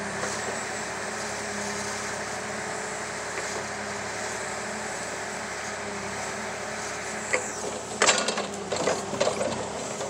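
Excavator engine running steadily. About seven seconds in there is a sharp crack, then a second of loud, irregular cracking and knocking as the hydraulic breaker works a firewood round and the wood splits.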